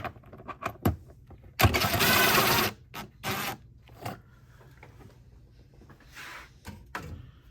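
DeWalt cordless power driver with an 8mm socket running to loosen a screw: a burst of about a second, then a shorter burst, with small clicks of the tool and socket around them.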